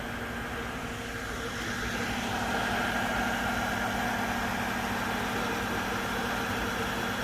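Truck-mounted concrete pump's engine and hydraulics running steadily, getting louder about two seconds in.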